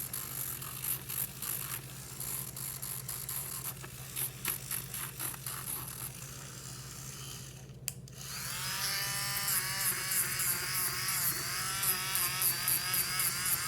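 Small electric rotary tool with a sanding drum grinding a parrot's toenails. About eight seconds in it cuts out briefly, then spins back up, its whine rising and then wavering as the drum bears on the nail.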